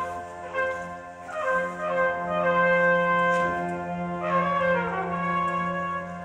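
Elementary school marching band's brass section playing held chords, with a steady low note underneath and new chords swelling in about half a second, a second and a half, and four seconds in.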